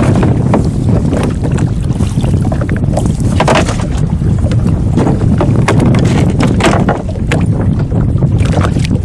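Wind rumbling on the microphone over water lapping at a small boat, with scattered short splashes and knocks as a longline is hauled in by hand.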